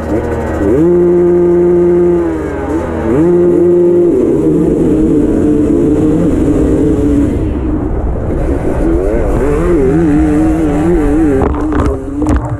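Enduro motorcycle engine revved and held at high revs twice at the start gate, then accelerating hard off the start, the revs rising and falling repeatedly through gear changes.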